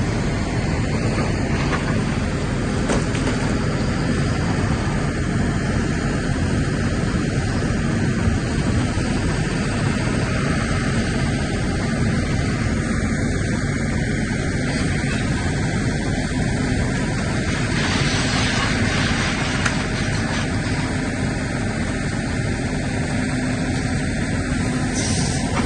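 Excavator's diesel engine running steadily under load, a constant low drone, with a brief rush of noise about 18 seconds in.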